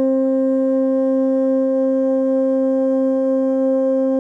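Passenger ship's horn sounding one long, steady blast: the departure signal as the boat leaves the pier.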